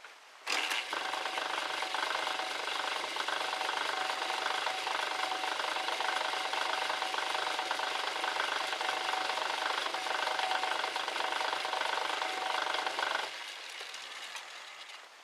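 Metal lathe turning down a small metal rod in a four-jaw chuck, the tool cutting with a steady hiss and a thin steady whine from about half a second in. The cut is a blank for a replacement lock screw or bridle pin. For the last couple of seconds the noise drops to a quieter running sound.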